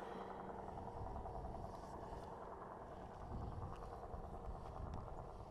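Faint, steady low rumble of roadside outdoor background noise, swelling slightly about three seconds in, with a few faint ticks.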